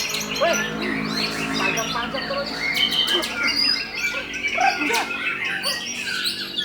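White-rumped shamas singing, several birds at once, a dense overlapping stream of loud whistles, chirps and quick trills, over a steady low hum.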